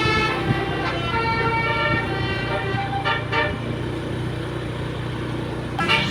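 Tour bus's multi-tone 'telolet' musical horn playing a tune of held notes over the bus engine running, with a louder blast of notes near the end.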